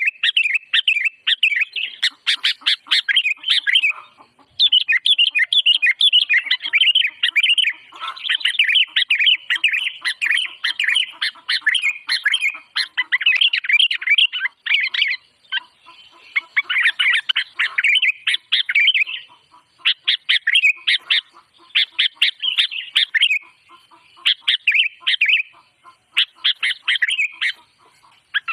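A songbird chattering loudly: phrases of quick, high chirps lasting a few seconds each, separated by short pauses.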